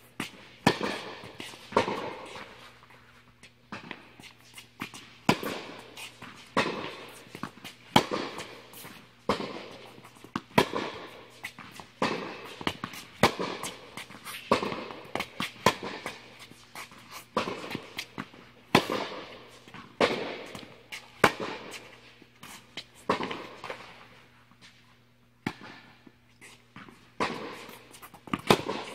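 Tennis rally on an indoor hard court: sharp pops of balls struck by rackets and bouncing on the court, coming about once a second, each with an echoing tail in the hall. A steady low hum runs underneath.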